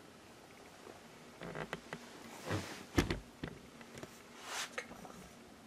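Light handling noise: a few soft clicks and taps and brief rustling, with one sharper knock about three seconds in.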